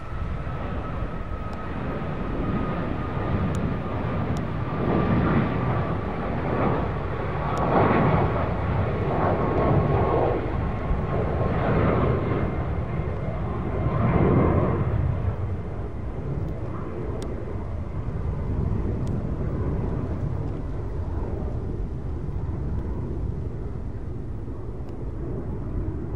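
Ryanair Boeing 737's twin jet engines at climb power as the airliner climbs away after takeoff: a high engine whine slowly falling in pitch over a heavy rumble. The rumble swells in waves through the middle and eases off toward the end.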